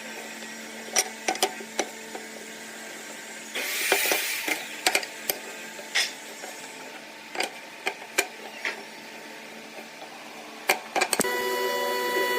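Woodworking handling sounds: scattered sharp knocks and taps of wood and tools, with a brief scraping rub about four seconds in, over a faint steady hum.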